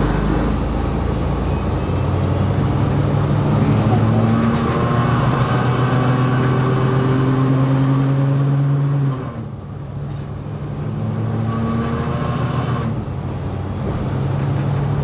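Onboard a 2020 New Flyer XD60 articulated diesel bus: the engine and drivetrain hum rises in pitch as the bus accelerates. The level drops suddenly about nine seconds in, and the hum climbs again with another shift near the end.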